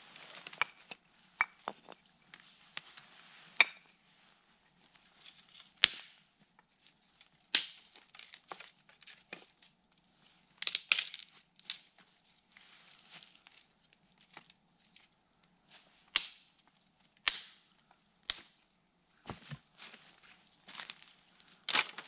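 Dry sticks being snapped by hand for kindling: a series of sharp cracks a second or two apart, with rustling and footsteps in dry fallen leaves between them.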